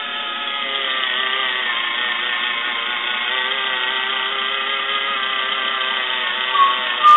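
Battery-powered hands-free can opener's small motor whirring steadily as it cuts its way around the rim of a can, with two short, sharper sounds near the end.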